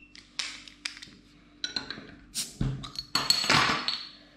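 A glass beer bottle being opened on a wooden table with a bottle opener: a few clinks and knocks, a dull knock of the bottle on the wood, then a hiss as the metal crown cap comes off and clinks onto the table.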